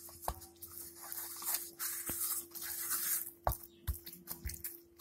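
Hands kneading soft, ghee-rich besan (gram flour) dough in a stainless steel bowl: irregular squishing and sticky smacking, with a few sharp knocks against the bowl.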